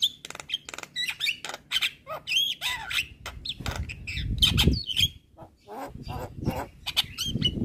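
Javan myna (jalak kebo) singing in a rapid, varied run of harsh squawks, clicks and short whistled notes. A low rumble sits beneath the song around the middle and again near the end.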